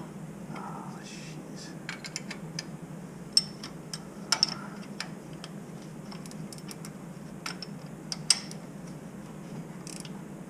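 Metal clicks and clinks of a wrench tightening the flange bolts on a Bell & Gossett circulator pump, in irregular strokes with a few sharper knocks, over a steady low hum.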